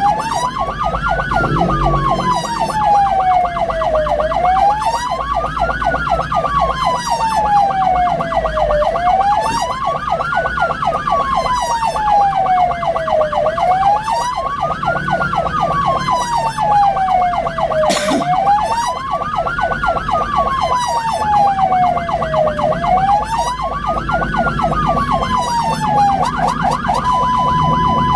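Ambulance siren wailing in a repeating cycle, rising for about a second and a half and falling for about three, over the low rumble of the vehicle. Near the end it switches to a two-tone hi-lo pattern.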